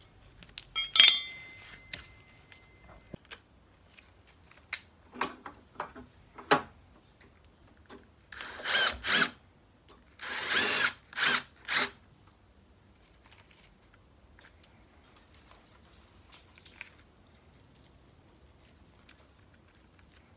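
A sharp metallic clank with a brief ringing tone about a second in, followed by scattered clicks and knocks. From about eight seconds a cordless drill-driver runs in four short bursts, driving screws through an iron flat-bar frame into wood.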